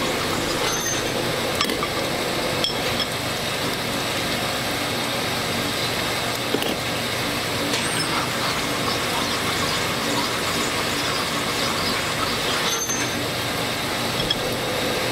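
Honing machine running steadily as the new bushing in an MGB rocker arm is honed out to size on its oiled, spinning mandrel, with a few light clicks as the arm is worked along the mandrel.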